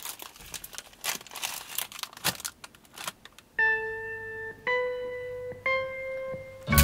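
A plastic instant-noodle packet crinkles, with a few light taps, as it is handled and set down on a desk. It is followed by three held keyboard-like notes, each a little higher than the one before, about a second apart, sounding as a title sting.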